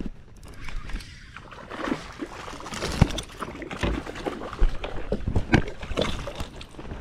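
A hooked fish splashing and thrashing at the water's surface right beside a kayak as it is reeled in, with irregular sharp knocks among the splashes.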